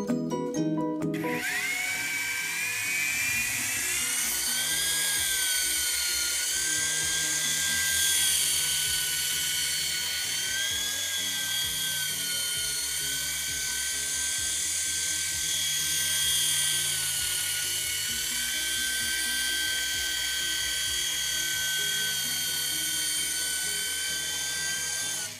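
Small 3.5-channel toy RC helicopter's electric rotor motors whining. They spin up with a rising pitch about a second in, then hold a steady high whine that wavers slightly in pitch as it flies, and cut off suddenly at the end.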